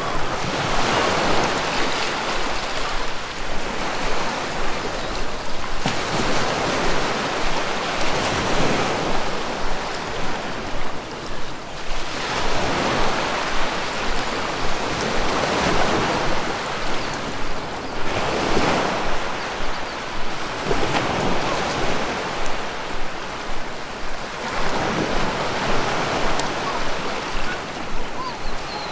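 Ocean surf rolling in and washing back, the wash swelling and fading in slow surges every few seconds.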